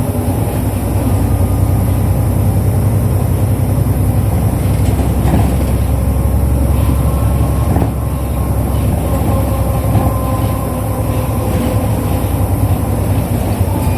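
Interior running sound of a 2005 Isuzu Erga KL-LV834L1 non-step city bus under way: a steady low engine and road rumble with a faint whine that drifts slightly in pitch, and a few light knocks from the body.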